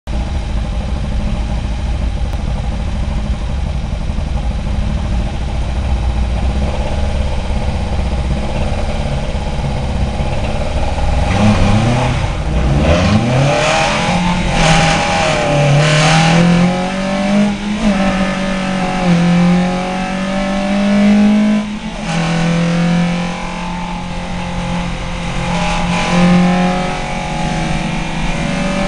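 VW Lupo saloon race car's engine heard from inside the cabin, rumbling steadily at the start line. About eleven seconds in the revs climb as the car pulls away at the race start. It then accelerates, with the engine note rising in each gear and dropping at gear changes around 18 and 22 seconds in.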